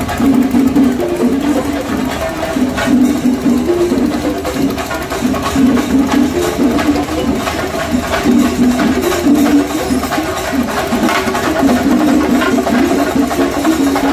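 Loud, fast festival percussion: drums beaten with sticks in dense rolling strokes, a steady wall of rhythm without a break.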